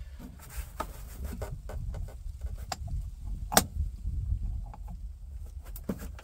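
Bare manual-transmission shift lever of a Tremec SROD three-speed overdrive gearbox being worked by hand while trying to find neutral: scattered metallic clicks and clunks from the shifter and linkage, the loudest a sharp click about three and a half seconds in, over a low rumble.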